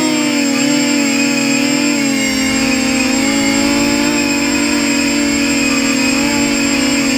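Versacopter 280 quadcopter's motors and propellers whirring in flight: a steady, loud pitched drone whose pitch wavers a little as the throttle changes.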